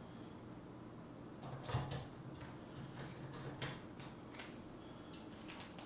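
Faint scattered clicks and taps of small screws and tools being handled over a plastic instrument-cluster housing, with one louder knock a little under two seconds in.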